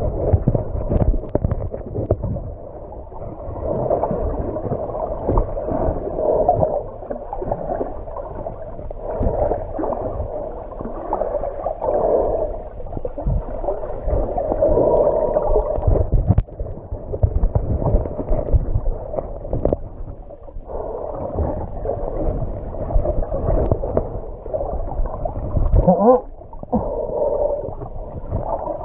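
Muffled water sloshing and gurgling picked up by a camera held underwater, swelling and fading every second or two, with a short rising whoosh a few seconds before the end.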